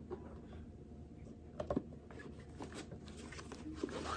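Faint rustling and a few light clicks and taps as items and packaging are handled in a cardboard box, with the sharpest taps about halfway through and near the end.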